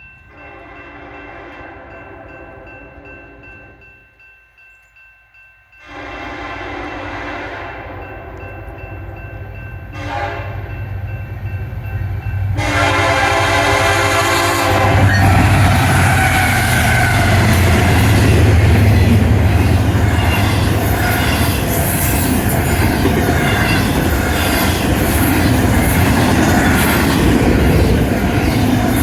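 BNSF SD70ACe-led freight train sounding its air horn in several long blasts as it approaches. From about halfway in, the locomotives pass close by with a loud diesel engine rumble and the clatter of wheels on rail.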